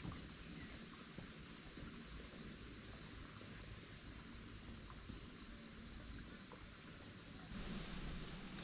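An insect's steady high-pitched trill, such as a cricket's, stopping shortly before the end.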